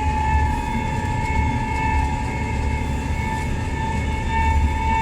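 Steady engine rumble with a constant high-pitched whine, heard from inside a farm vehicle's cab.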